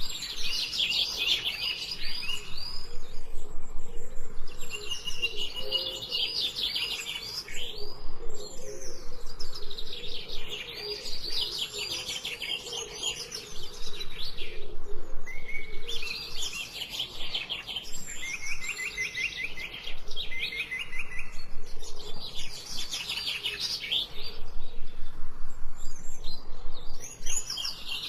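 Songbirds singing: a run of fast, trilled and chirping phrases, each a second or two long, repeated one after another with short pauses between them.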